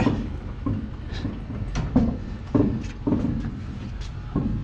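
Heavy machine rolling on machine skates as it is pushed by hand across a concrete shop floor: a low rumble with about seven irregular clunks and knocks.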